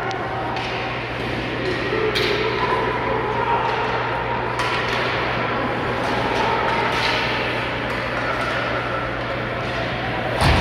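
Ice hockey game heard in the rink: a steady murmur of crowd voices over a low hum, broken by scattered sharp cracks of sticks and puck, with a loud bang near the end.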